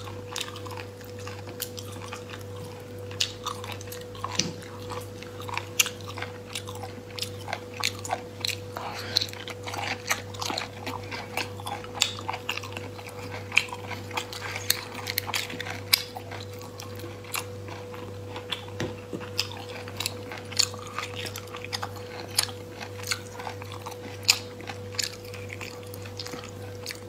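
Close-miked eating sounds: many short clicks and crackles of sea snail shells being handled and pulled apart by hand, with chewing. A steady low electrical hum runs underneath.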